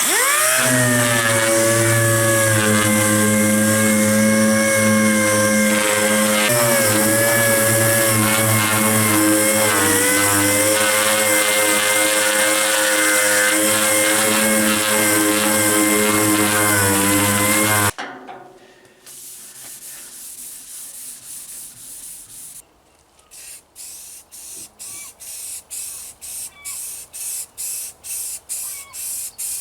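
Electric power tool motor spinning up, running at a steady pitch and cutting off suddenly about eighteen seconds in. It is followed by a quieter hiss, then short hissing spray bursts about twice a second.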